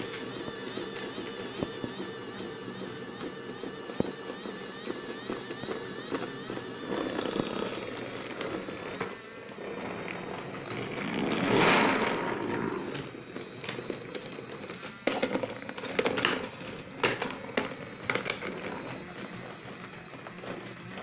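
Small electric motor of a battery-powered toy train whining as it pulls wooden railway wagons. A swelling rush comes about halfway through, and the wheels then click and knock sharply over the track joints several times.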